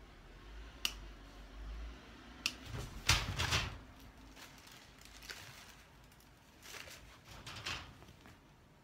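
Plastic cable ties and metal wire lattice panels being handled while the panels are tied together. There are two sharp clicks in the first few seconds, then a longer rattling rustle about three seconds in, and lighter rattles later.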